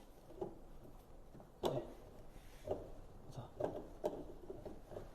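Faint, scattered short knocks and clicks, about five of them spread across a few seconds in a small room, the sharpest a little under two seconds in.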